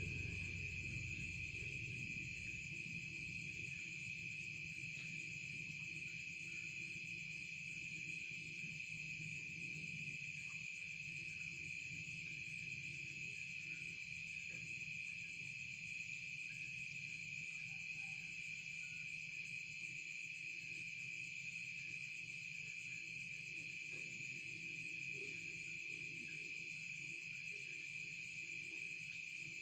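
Steady chorus of insects, a continuous high-pitched trill that holds unchanged throughout. Background music is fading out in the first couple of seconds.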